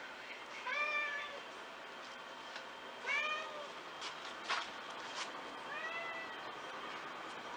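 Domestic cat meowing three times, each meow rising then falling, about two and a half seconds apart; the third meow is fainter. A few short clicks or taps come between the second and third meows.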